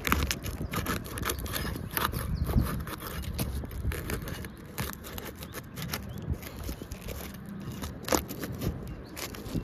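Irregular scraping and crackling of an asphalt shingle being pried up from its sealant strip; the shingle is stiff and resists being unsealed.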